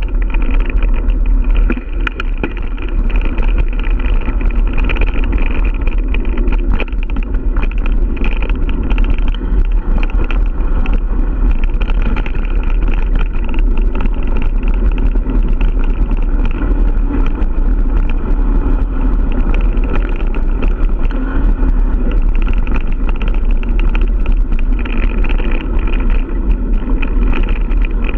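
Giant Stance 1 mountain bike riding along a dirt forest trail, heard through a camera mounted on the bike: a constant rumble of tyres on the dirt and wind on the microphone, with frequent small rattles and knocks as the bike goes over bumps.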